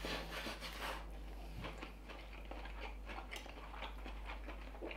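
Quiet eating sounds: forks clicking and scraping faintly on ceramic plates of noodles, with chewing.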